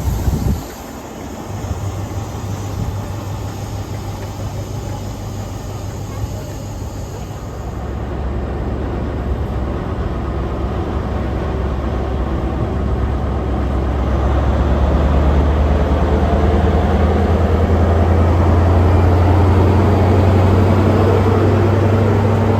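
A train's diesel engine running with a low, steady hum, growing steadily louder from about a third of the way in.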